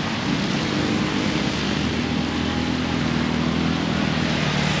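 Road traffic passing close by: a steady rush of tyres and engines, with a vehicle's engine hum growing stronger through the second half.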